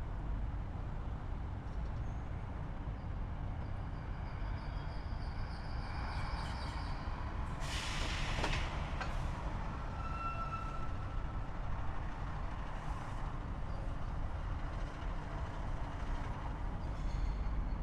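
Street ambience outside a subway station: a steady low rumble of traffic and trains, with faint high squeals for a few seconds and a short, loud hiss about eight seconds in.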